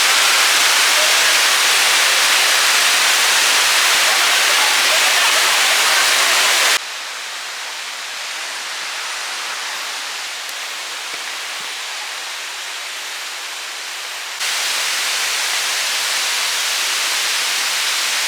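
Rushing water of a waterfall, a steady loud hiss. About seven seconds in it drops abruptly to a softer, duller rush, and about seven seconds later it jumps back up.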